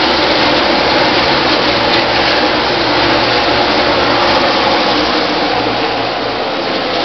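A field of NASCAR Nationwide Series stock cars' V8 engines running at racing speed around the track, a steady, loud, dense roar with faintly wavering engine notes.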